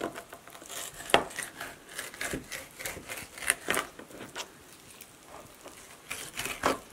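Knife scraping and tapping on a plastic cutting board as it slices the skin off a northern pike fillet, in short irregular strokes, the sharpest about a second in, around the middle and near the end.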